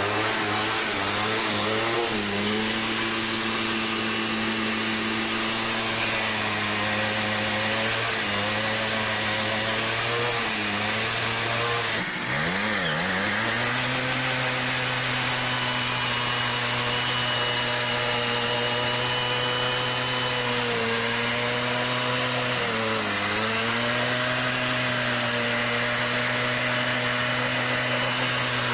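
Simson Star moped's 50 cc two-stroke single-cylinder engine held at high revs during a burnout, the rear wheel spinning. The pitch stays steady apart from a sharp dip and recovery about twelve seconds in and two lighter dips later on.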